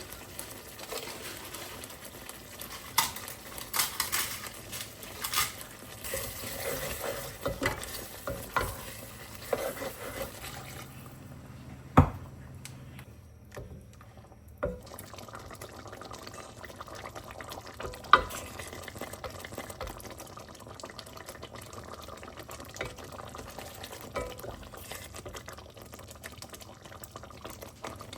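A spoon stirring curry in a pan over the heat, with a soft bubbling, sizzling background and scattered sharp clinks of the utensil against the pan, the loudest about 12 and 18 seconds in.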